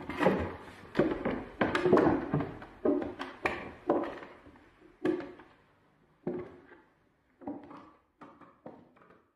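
A series of dull thuds and knocks with a short echo after each, fast and loud at first, then fainter and more spread out until only a few soft taps are left near the end.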